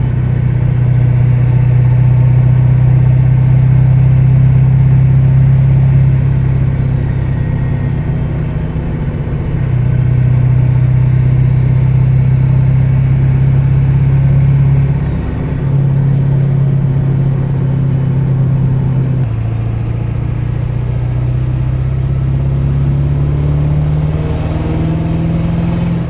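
Ford OBS pickup's engine droning steadily inside the cab while cruising on the highway. Its pitch shifts a few times with changes in speed and rises near the end as the truck accelerates.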